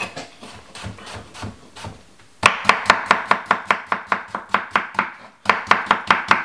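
Kitchen knife slicing a cucumber on a wooden chopping board. A few soft cuts come first. From about two and a half seconds in there is a quick, even run of sharp knife taps on the board, about five a second, with a brief pause near the end.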